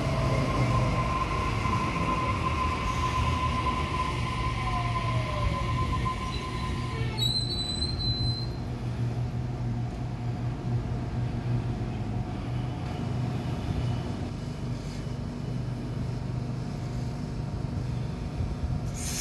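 Waratah double-deck electric train slowing into the platform, its traction motors whining with a pitch that falls as it slows. A brief high-pitched brake squeal comes about seven seconds in. After that the stopped train hums steadily.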